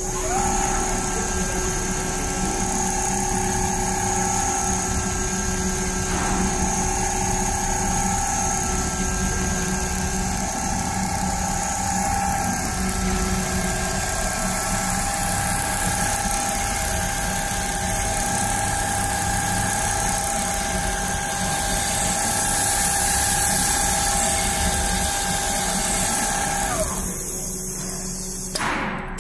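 Richpeace CNC rotary-head sewing machine stitching a duvet, its sewing head running at a steady speed with a high motor whine. It speeds up just as it begins and slows to a stop near the end.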